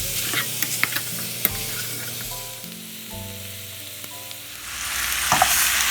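Cubed pork belly sizzling in a hot pan as it renders its fat and browns, with scattered sharp pops of spattering fat in the first half. The sizzle eases in the middle and swells louder again near the end.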